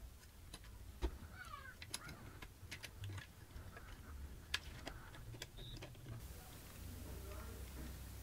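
Faint, scattered clicks and ticks of needle-nose pliers and wire component leads being bent and fitted onto a turret board, with a couple of short squeaks about two seconds in.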